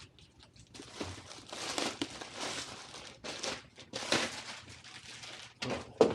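Packaging of a shipping parcel being ripped open by hand: irregular crinkling and tearing, with a sharp, louder burst near the end.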